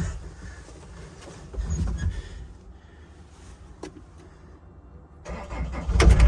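A few knocks and clicks, then an excavator's diesel engine starts about five seconds in and settles into a loud, steady low rumble at idle.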